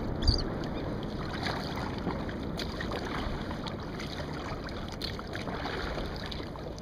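Wind buffeting the microphone over water lapping at a kayak's hull, with one low bump near the start.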